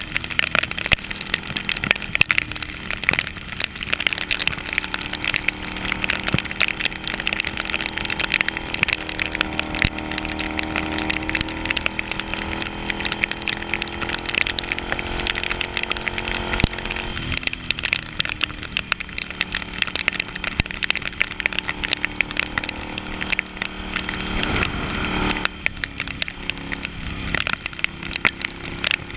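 Ducati Hypermotard's L-twin engine running at road speed, its note dropping about halfway through and climbing again near the end, over a steady rush of wind and rain spattering on the camera.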